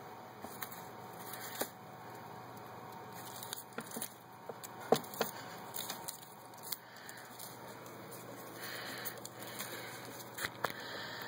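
Shredded paper strips rustling and crackling as a cat paws at them and bites them, with scattered sharp clicks, the loudest about five seconds in.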